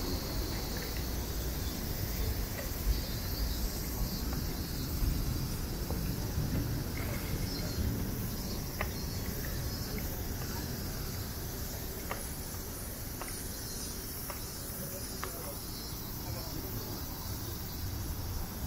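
Steady high shrilling of insects over a low rumble of city traffic, with a few faint clicks.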